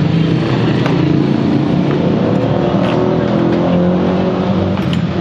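A motor vehicle's engine runs steadily close by, its pitch rising slightly about three to four seconds in.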